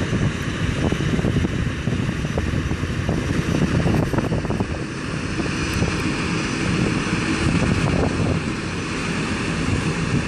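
Inland motor cargo vessel's diesel engine running in a steady low drone as it passes close below, with its propeller churning the water behind the stern.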